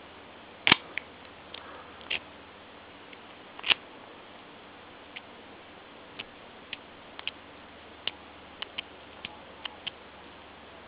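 Abus 8345 padlock and its bump key being handled once the lock is open: three sharp metal clacks in the first four seconds, then a scattered run of lighter clicks.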